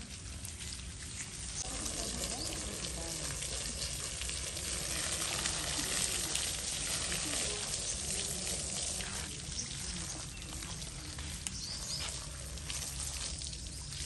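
Water from a garden hose spraying over a sheep's wet fleece and splashing onto concrete: a steady hiss.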